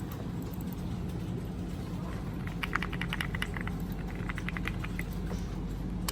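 Keystrokes on a Zuoya GMK70 split mechanical keyboard with Akko Lavender Purple tactile switches: two quick runs of key clicks, starting about two and a half seconds in and again about four seconds in. A steady low hum lies under them.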